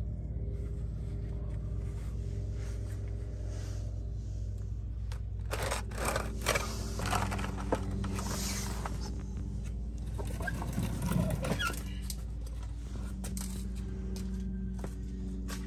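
A plastic oil drain pan scrapes and knocks on concrete as it is slid into place under a draining oil pan, with a run of clattering scrapes in the middle. Behind it runs a steady hum with sustained tones, likely soft background music.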